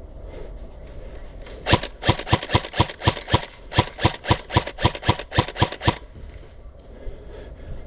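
Airsoft gun firing a rapid string of about sixteen single shots, roughly four a second, for about four seconds, each a sharp crack.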